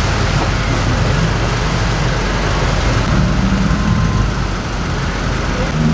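Road traffic: motor vehicle engines running steadily under a constant hiss of road noise.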